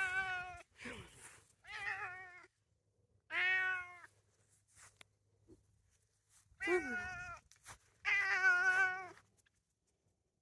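A male Bengal-mix cat meowing about five times, each a drawn-out call of half a second to a second, with pauses of a few seconds between them.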